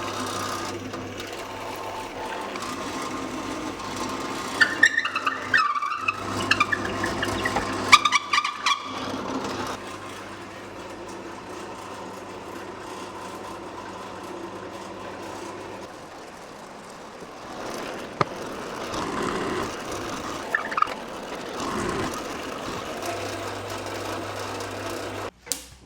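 Electric drill running with a 20mm Forstner bit boring holes through wood. A steady motor hum, with louder bursts of the bit cutting about five and eight seconds in.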